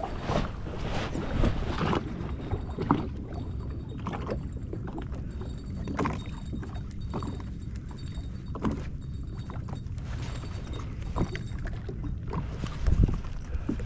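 Small waves lapping and slapping against the hull of a drifting jet ski, with scattered light knocks and a steady low rumble, and a louder thump near the end.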